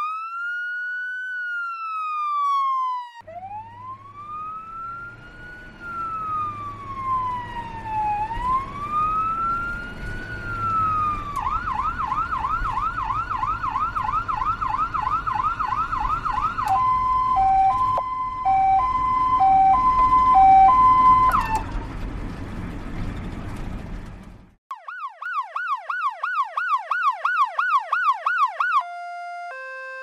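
A run of emergency-vehicle siren patterns: a slow rising-and-falling wail, then a fast warbling yelp, then an alternating two-note hi-lo, with a low rumble underneath through the middle. After a brief break it returns to a fast yelp, then switches to alternating steady tones near the end.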